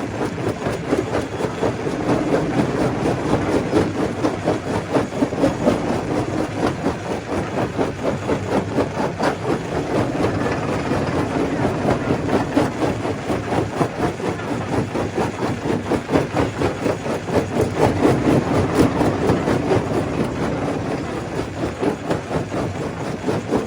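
Stone crusher running and crushing rock: a continuous clatter of stones knocking and grinding over a steady machine drone.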